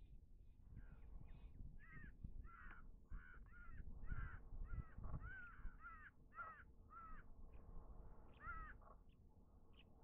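House crows cawing: a rapid run of short, harsh caws, about two a second, that thins out near the end, over a low rumble.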